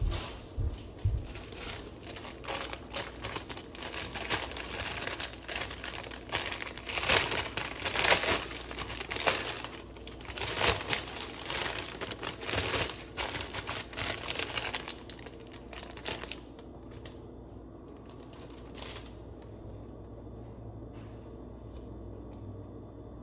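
Thin clear plastic bag crinkling and rustling in a rapid run of crackles as it is handled and a pastry is taken out of it. The crackling stops about two-thirds of the way through, and there is one brief rustle after that.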